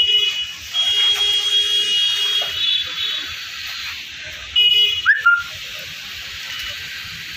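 Vehicle horn honking in traffic: several steady, high-pitched honks of uneven length in the first five seconds, followed by a short rising chirp.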